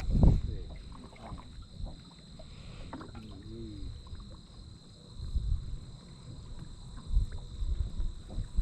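Low rumbling and knocks from a small fishing boat on the water, louder near the start and again near the end, over a faint steady high-pitched whine.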